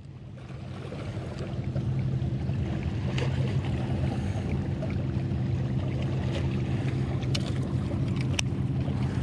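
A boat motor running steadily, its low hum growing louder over the first couple of seconds and then holding. A few sharp clicks come from the fishing reel being handled.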